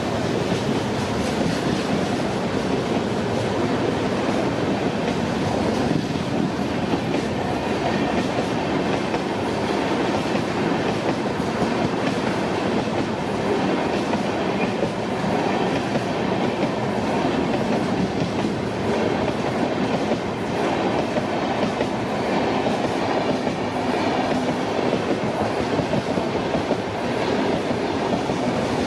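Train wheels running over the rails: a steady rumble and rattle with clickety-clack from the rail joints.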